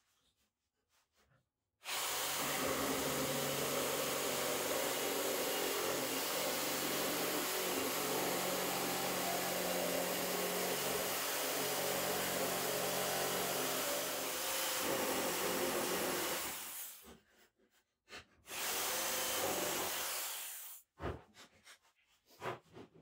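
Corded jigsaw cutting a curve through a wooden board, its motor running steadily under the blade's cutting noise. It starts about two seconds in, runs for about fifteen seconds, stops, then cuts again for about two seconds.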